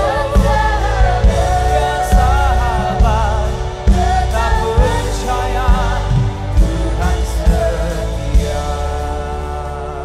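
Live worship band playing a gospel song: singers with vibrato over keyboard, bass and drums. About eight and a half seconds in the drums stop and a held chord with singing carries on, slowly fading.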